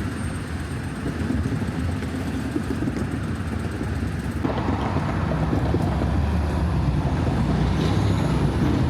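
Motor vehicle running with a steady low rumble, amid urban outdoor noise. The sound changes abruptly about four and a half seconds in, as if to another vehicle or spot.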